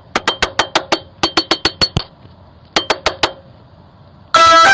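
A metal pot banged rapidly with a utensil, each strike a sharp ringing clank, in quick runs of about six or seven a second. Near the end a loud buzzing tone with many pitches blares out suddenly.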